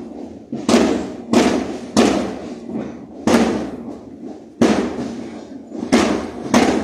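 School marching band's drums and crash cymbals striking a slow marching beat: about seven heavy strokes, each ringing out before the next.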